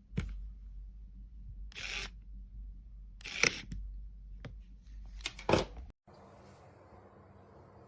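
Handling noise: a few sharp clicks and short scraping rustles over a low hum. About six seconds in, the sound cuts off suddenly to a faint steady hiss.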